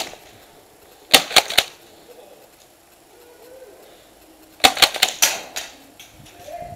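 Airsoft guns firing: a quick cluster of three or four sharp cracks about a second in, and a longer run of cracks and clacks from about four and a half to five and a half seconds in, with a few fainter clicks after.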